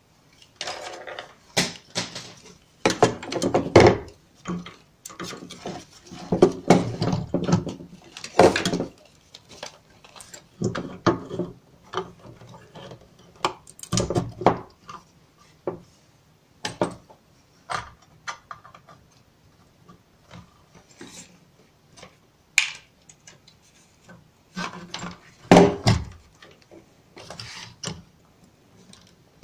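Irregular clicks, knocks and rustling of computer hardware being handled: an ISA video card and grey ribbon cables fitted into an open PC/AT test bench. The loudest knocks come around 3–4 s, 8 s, 14 s and 25 s in.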